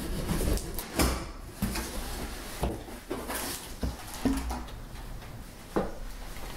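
Cardboard shipping box being unpacked: packing tape sliced with a box cutter, flaps pulled open and a cardboard bottle divider lifted out, giving rustling and a string of separate knocks. Near the end a wine bottle is drawn out of the box.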